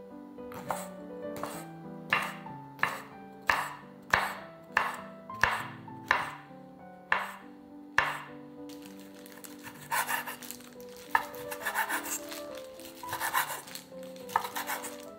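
Chef's knife chopping on a bamboo cutting board: dicing king oyster mushrooms with a steady knock about every two-thirds of a second, then from about halfway faster, denser chopping through bacon. Soft background music plays under it.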